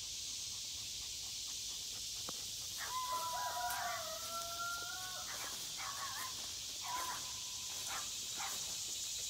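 A French Copper Marans rooster crowing: one long call of about two seconds starting about three seconds in, followed by a few shorter calls, over a steady high chorus of insects.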